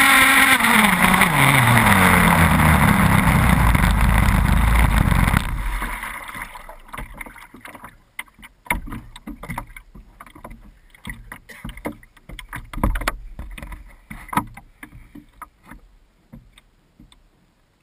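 The 30cc two-stroke petrol engine of an RC catamaran, fitted with a tuned exhaust pipe, runs loud, then drops steadily in pitch as the throttle comes off and cuts out suddenly about five seconds in. After that there are only small water slaps and scattered knocks against the hull as the boat drifts.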